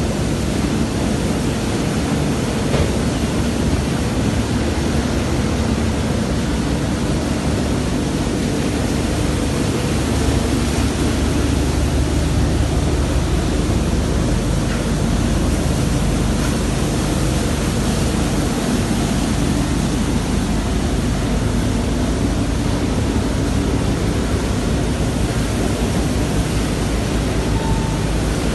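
Semi-automatic 11 kW hydraulic hay baler running: a steady mechanical noise with a low hum underneath and a single click about three seconds in.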